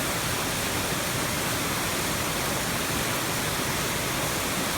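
Waterfall: water falling steadily onto rock, a constant full rushing noise.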